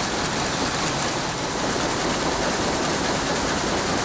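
Rice mill machinery running: a vibrating separator shaking rice grains along its deck, a steady even noise.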